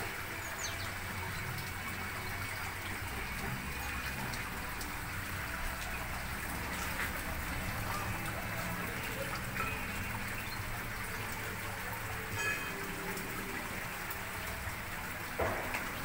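Steady hiss with a low hum underneath, and a few faint, brief chirps from small birds in an aviary scattered through it.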